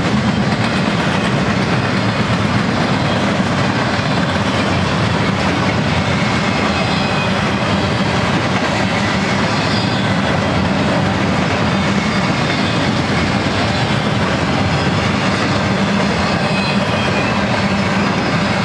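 Double-stack intermodal freight train's well cars rolling past: a loud, steady noise of steel wheels on rail.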